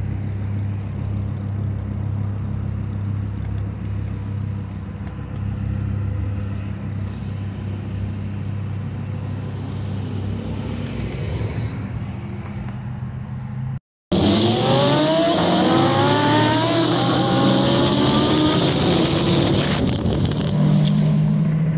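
Lamborghini Huracán V10 engines idling steadily at a stop. About fourteen seconds in, after a sudden cut, a louder engine accelerates hard with its pitch climbing, then holds at high revs under a strong hiss.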